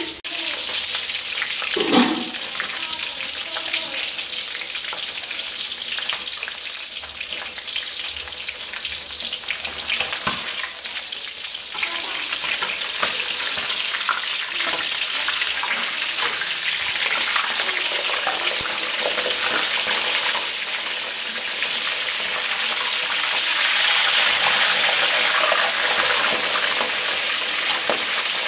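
Two whole fish frying in hot oil in a steel wok: a steady sizzling hiss that grows a little louder in the second half. A sudden loud burst about two seconds in and a few sharp clicks later, from tongs working the fish.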